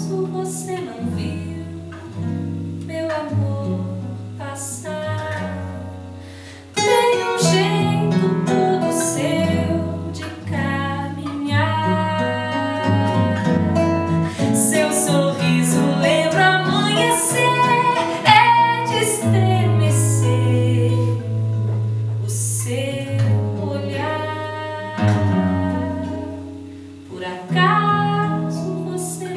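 A woman singing a Brazilian song with acoustic guitar accompaniment, performed live; the music gets louder and fuller about seven seconds in.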